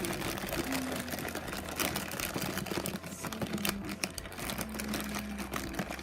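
Hands rummaging through a pile of packaged blind bags and blind boxes: a rapid, uneven run of clicks, rattles and plastic rustling.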